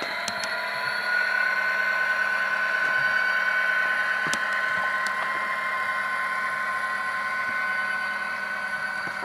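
HO-scale SD70 model locomotive's Tsunami digital sound decoder playing a diesel locomotive engine through the model's small onboard speaker, running with a steady whine that gets louder about a second in.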